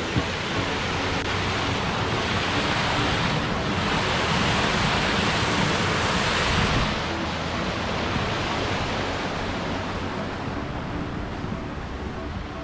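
A small river cascade with water rushing over stepped rock ledges, a steady rushing noise. It is strongest in the middle and grows fainter toward the end.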